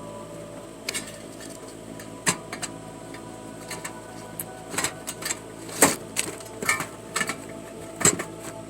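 Sheet-metal vent hood knocking and scraping against the floor vent as it is fitted into place: about half a dozen sharp clanks and taps, the loudest about six seconds in, over a steady hum.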